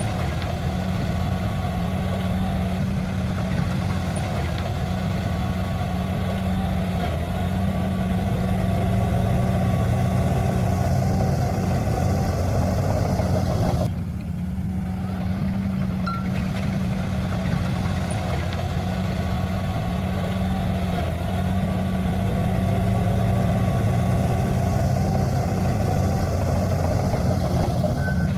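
Heavy diesel engine of earthmoving machinery running steadily at an even, low pitch. About halfway through, the higher part of the sound briefly drops away, then the engine sound carries on as before.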